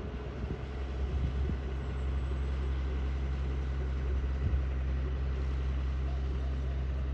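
Tractor's diesel engine running steadily at an even speed, a low, constant hum.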